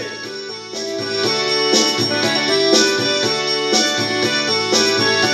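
Instrumental music from a festa junina song, before the singing: a keyboard plays the tune in held notes over a regular beat.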